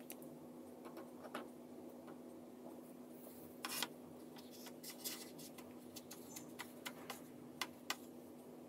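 Faint taps, clicks and a short rustle of hands coating a batter-dipped vegetable cutlet in dry bread crumbs in a plastic tray, over a steady low hum.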